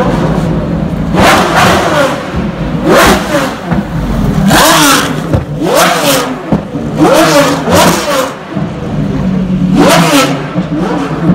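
Pagani Zonda Revolution's Mercedes-AMG V12 rumbling low with a series of sharp throttle blips, each rev rising and falling quickly in pitch, as the car rolls away down the pit lane.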